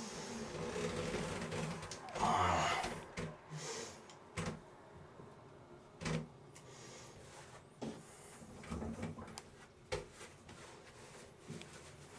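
Rustling handling noise in the first three seconds, then a handful of scattered short knocks and thuds.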